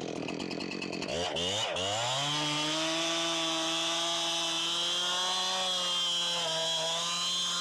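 Two-stroke chainsaw revved up sharply about a second in, then held at a steady high speed while cutting through the fallen tree's wood, with slight dips in pitch under load.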